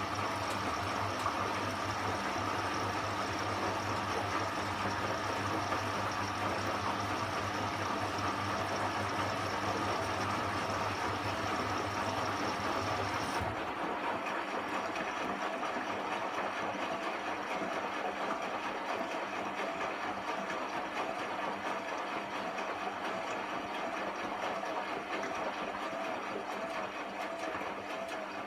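Hotpoint washing machine running: a steady motor hum that cuts off about halfway through, leaving an evenly repeating mechanical sound.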